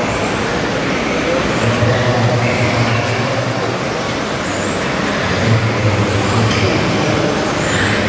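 Engine sound of a radio-controlled Mercedes-Benz Actros 8x4 model tipper truck, a low drone swelling in three bursts while its hydraulic tipper raises the loaded bed, over a steady background din.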